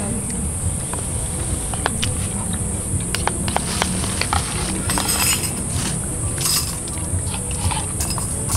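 A metal ladle clinking and scraping in a camping cook pot and a plastic bowl as soup is served, a scattered run of short clicks. Under it, a steady high-pitched insect drone.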